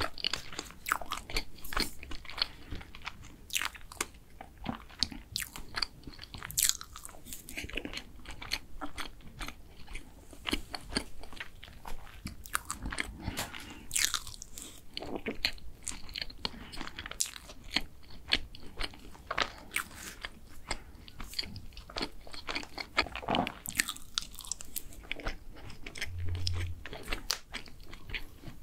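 Close-miked ASMR eating: chewing bites of chocolate cake with many short, irregular mouth clicks. Near the end, a wooden spoon scrapes in a paper ice-cream cup.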